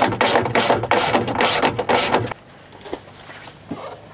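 Hand ratchet wrench being worked in quick strokes, about four rattling bursts a second, stopping a little past halfway, then only faint handling sounds.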